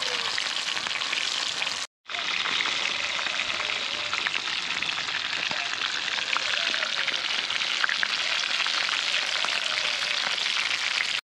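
Fish frying in hot oil in a pot: a steady, dense sizzle and crackle of many tiny pops. The sound cuts out for a moment about two seconds in.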